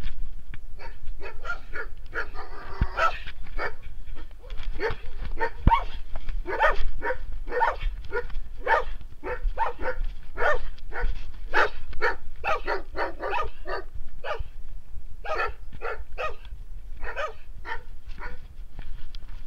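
Unfriendly dogs barking over and over at close range, a quick run of short barks about two a second with a few brief pauses.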